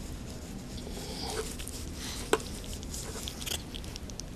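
Soft wet tearing and small clicks as a raw chicken leg is pulled apart by hand and picked at with a plastic knife, with one sharper click about two seconds in.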